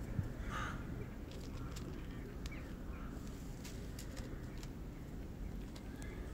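Tuxedo cat chewing dry kibble: scattered short crunching clicks. A short call sounds about half a second in, over a low steady outdoor rumble.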